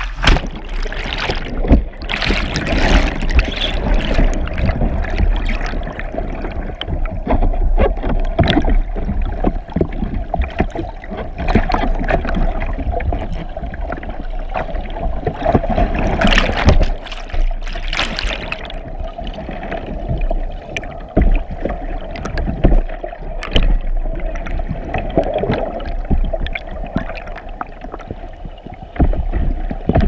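Whitewater rushing and bubbling around a submerged GoPro camera, heard from underwater as a churning rumble with many sharp knocks and splashes. It is loudest around two seconds in and again around sixteen seconds in, and calmer near the end.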